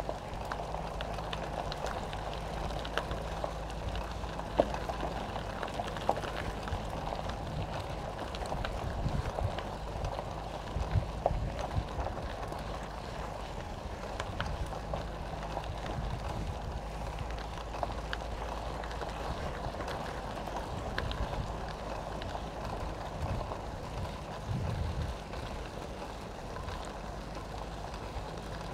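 Steady road noise of riding uphill: a constant low hum and rumble, with scattered light clicks and ticks.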